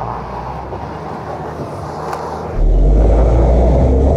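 Suzuki Jimny's 1.5-litre four-cylinder petrol engine running as the vehicle drives over a rutted off-road track. It is heard more distantly at first, then becomes suddenly much louder and closer about two and a half seconds in, with a steady low drone.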